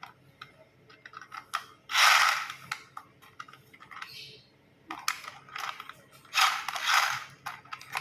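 Toy trains being handled: scattered clicks and knocks, with two louder clattering rattles about two seconds in and again after six seconds.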